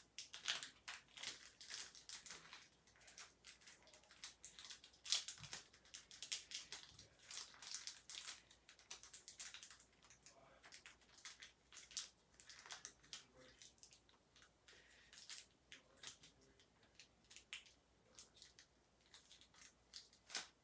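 Faint, irregular crinkling and tearing of packaging being pulled open by hand, a scatter of sharp crackles coming and going as a toy's collector's guide is unwrapped.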